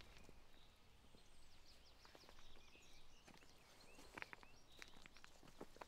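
Near silence: faint outdoor ambience with a few soft steps on a gravel path and faint bird chirps.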